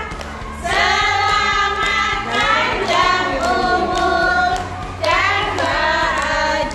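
A group of children, with some adults, singing a birthday song together, while hands clap along in a steady beat.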